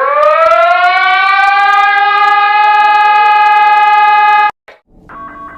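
Siren winding up from low to high pitch over about a second and a half, then holding one steady wail until it cuts off abruptly. After a brief gap, a different alert tone with short repeating beeps begins near the end.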